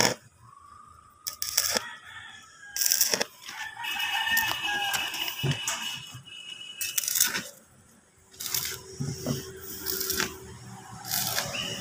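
Arc welding on a steel gate frame: the welding arc crackles and sputters in repeated short bursts. A rooster crows for a few seconds, starting about four seconds in.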